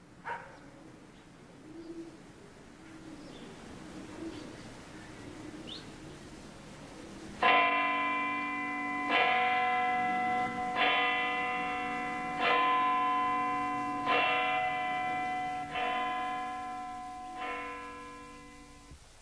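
A church bell tolls seven strokes, about a second and a half apart, each stroke ringing on and fading before the next. Before the first stroke, faint street ambience with a few short bird chirps.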